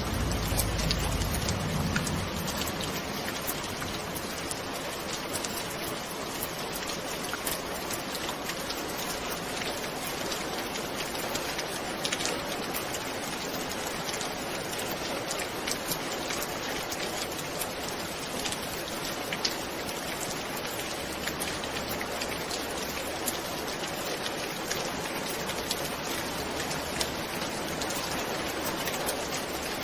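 Steady rain falling, with many sharp ticks of single drops striking a surface. A low rumble dies away in the first two seconds.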